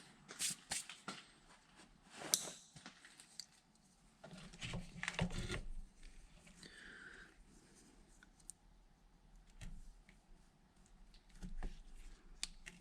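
Hand tools working on heavy battery cable: scattered clicks, clacks and short scrapes, with a longer rasping stretch in the middle and a brief squeak just after it.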